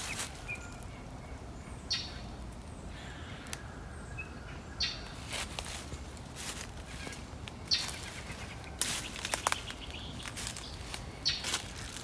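Slow, uneven footsteps crunching through dry fallen leaves, one every second or two with pauses between. There are a couple of faint short bird chirps in the background.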